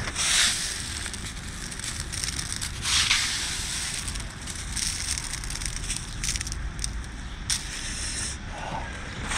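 Hailstones crunching as a hand scoops them out of a thick layer of hail on the road. There are louder crunches just after the start and about three seconds in, with fainter crackles in between and a steady low rumble underneath.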